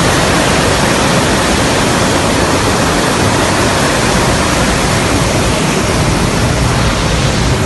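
Il-76 transport aircraft in flight: a steady, loud, even rush of jet engine and airflow noise.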